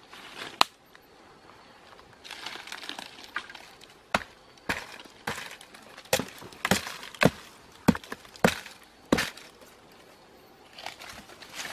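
Decayed log being broken apart: one sharp crack right at the start, then a run of about nine sharp cracks and knocks, roughly two a second, with rustling of dry leaves and crumbling wood fibres before and after.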